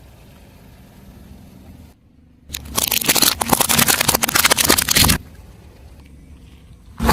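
A car tyre rolling over and crushing something crunchy: a dense run of cracks and crackles, starting about two and a half seconds in and stopping abruptly about two and a half seconds later.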